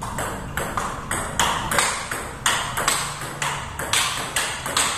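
Table tennis rally: the celluloid ball clicking off the rubber paddles and bouncing on the table in quick alternation, about three sharp hits a second.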